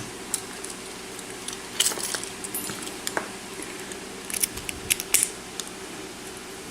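Scattered small metallic clicks and clinks as a Tesa padlock is taken apart, its retaining clips worked off with a clip-removal tool; the clicks come in small clusters, about two seconds in and again near five seconds.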